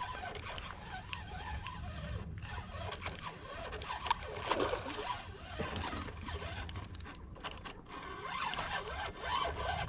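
Fishing reel being cranked, its gears and ratchet clicking, while a hooked striped bass is reeled in.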